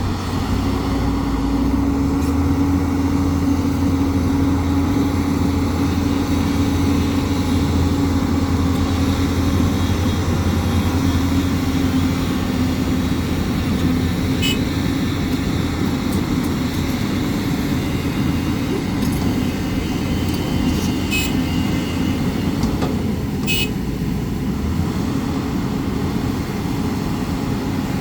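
Hyundai excavator's diesel engine running steadily under load. A few sharp knocks come about halfway through and again near the end.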